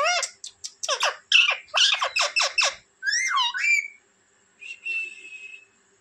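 Rose-ringed (Indian ringneck) parakeet calling: a quick run of short, harsh squawks, then one longer call that dips and rises, and a fainter thin whistled note near the end.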